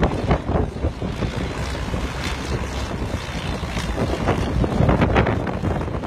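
Single-engine bush plane flying low overhead, its propeller engine droning steadily under heavy wind buffeting on the microphone.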